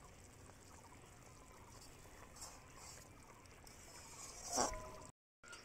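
Steel ladle stirring a thin, watery fish-and-pointed-gourd curry in an aluminium pot: faint wet sloshing, with a louder scrape against the pot about four and a half seconds in. The sound drops out completely for a moment just before the end.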